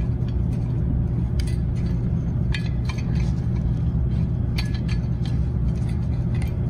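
Steady low background hum, with a few light metallic clicks and clinks as a 3 mm hex key turns a screw into a metal band heater's clamp fitting.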